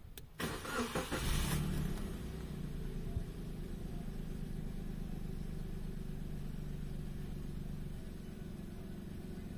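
Nissan Pixo's three-cylinder petrol engine being started: a loud burst as it fires up in the first two seconds, then a steady idle, a little quieter near the end. The idle is being checked after a throttle body cleaning meant to cure an unsteady idle that rose and fell, and it sounds better to the owner.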